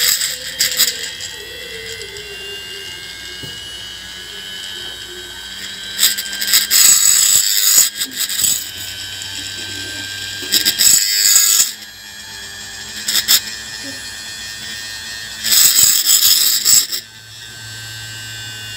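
Opened hard drive's brushless spindle motor spinning the platter with a steady high-pitched whine. A fingertip pressed on the spinning hub rubs against it in four loud scraping bursts, the last ending about seventeen seconds in.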